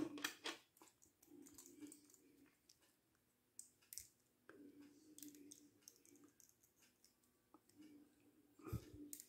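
Faint clicks and light rubbing of small plastic parts being handled, as a clear plastic blast-effect accessory is fitted to a Figma action figure. A few sharper clicks come near the start and near the end.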